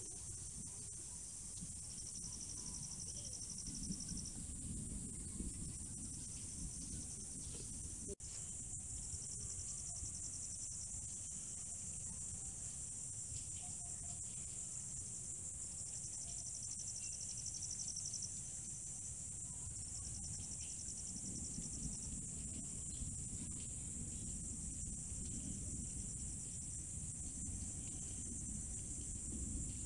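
Night chorus of crickets: a steady high-pitched shrill, with a second trill coming in repeated spells of about two seconds, over a low rumble.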